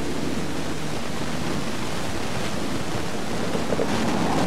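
Steady rushing background noise with no distinct events, a little stronger near the end.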